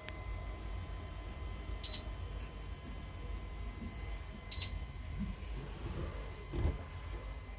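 Two short electronic beeps, about three seconds apart, over a steady low hum and a faint high electrical whine.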